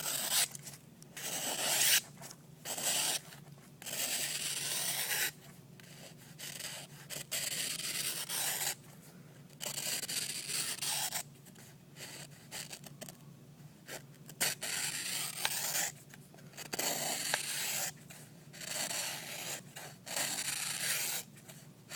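Freshly sharpened SOG Aegis knife blade slicing through paper in a sharpness test, over and over, each cut a short hiss lasting about a second, with brief pauses between cuts.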